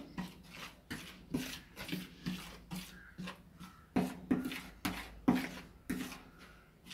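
Metal spoon scraping and stirring against a ceramic plate in quick repeated strokes, about three a second, mixing flour and salt with a little water into a dough.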